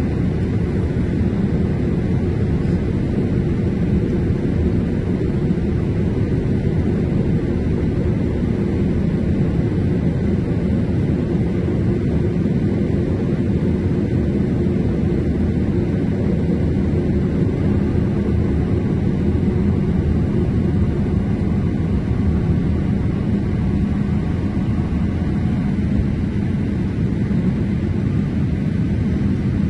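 Steady in-flight cabin noise of a Boeing 787 heard from a window seat by the wing: a constant low rumble of engine and airflow that does not change.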